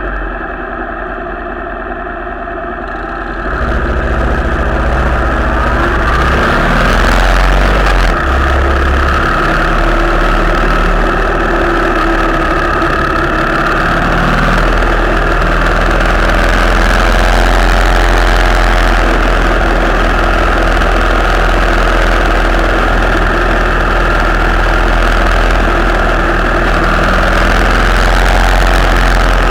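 Motorcycle engines idling at a stop, then about three seconds in the riders pull away and ride on at speed, with engine noise and a steady rush of wind over the microphone.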